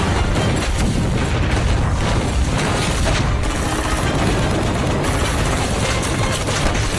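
Film battle sound effects: dense, continuous gunfire with heavy booming blasts.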